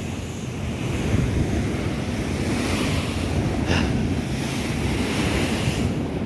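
Sea waves breaking and washing in on the shore, swelling in surges, with wind rumbling on the microphone.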